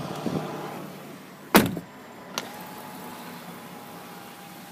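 A car door shuts with a single heavy thump about one and a half seconds in, followed by a lighter click and a faint steady hum.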